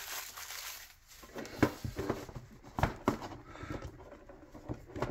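Metal collector's tin being handled and worked open: scattered light taps, clicks and scrapes.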